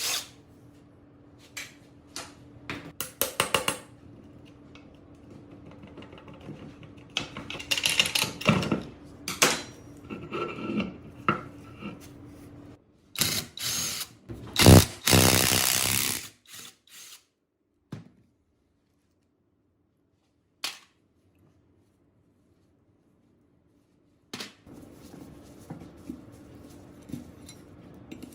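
Workshop tool work on metal engine parts: scattered clicks and knocks and short noisy runs of a power tool, with a stretch of complete silence past the middle.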